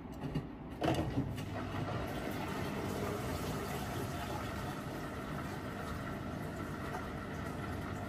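Miele W5877 front-loading washing machine running mid-cycle: a few knocks about a second in, then a steady running noise of motor and drum.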